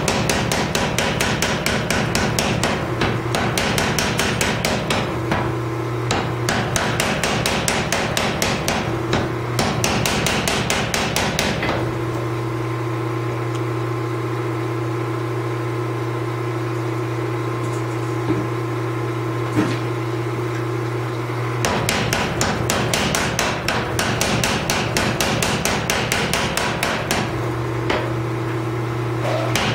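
Power hammer pounding a white-hot Damascus billet in runs of rapid, even blows, setting the first forge weld. The blows stop for about ten seconds in the middle, leaving a steady machine hum, then start again.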